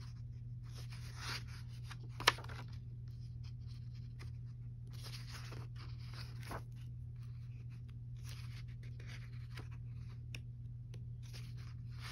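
Paper pages of a coloring book being turned and a hand sliding over them, rustling in several short swishes, with one sharp click about two seconds in. A steady low hum runs underneath.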